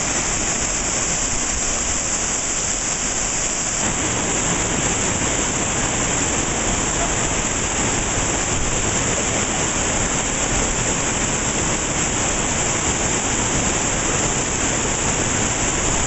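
River water rushing over rocks and small cascades close to the microphone, a steady, loud wash of noise.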